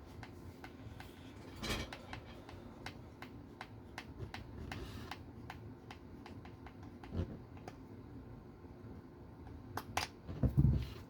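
Small clicks and taps of a screwdriver and small plastic and metal RC-car parts being handled during assembly, with a louder knock about two seconds in and a few heavier thumps near the end.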